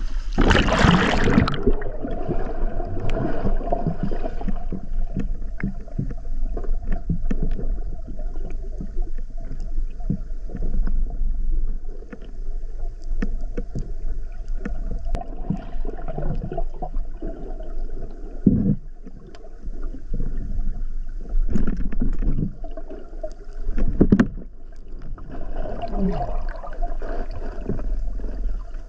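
A splash about a second in as the spearfisher goes into the river. Then a muffled underwater sound picked up by the submerged camera: a low water rumble with scattered clicks and a few heavier thumps.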